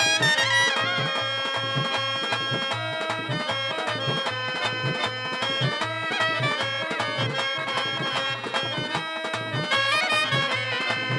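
Instrumental stage-drama music: a harmonium playing long held reedy notes over a steady tabla beat.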